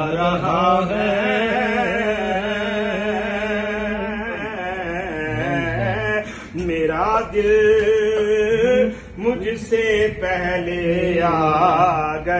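Men's voices chanting Sufi zikr, a continuous melodic devotional chant with a steady low held note beneath it. It drops briefly about six and nine seconds in.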